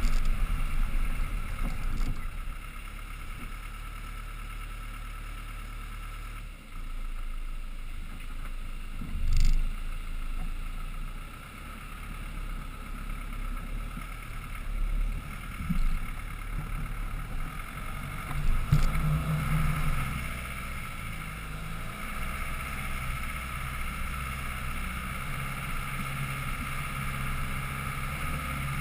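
Land Rover Defender 110's engine running at low revs as the truck crawls up a rough dirt and rock trail, its rumble rising and falling with the throttle. Two sharp knocks, about a third of the way in and again about two-thirds in.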